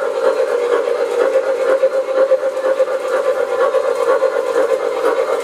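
A steady droning hum with a hiss over it, holding an even pitch throughout.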